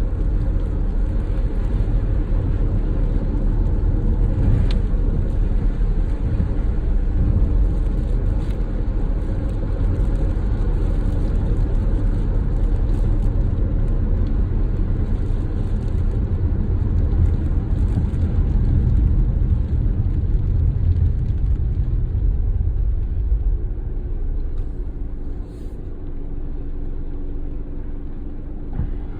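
Car driving, a steady low rumble of engine and road noise that eases off about 24 seconds in, leaving a quieter low hum.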